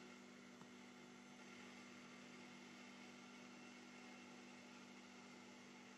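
Near silence: a faint, steady hum under a low hiss.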